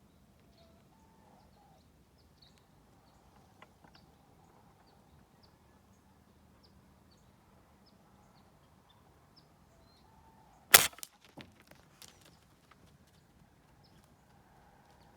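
A tranquilizer dart rifle firing once, a single sharp report, followed by a few fainter clicks and knocks over the next second or so.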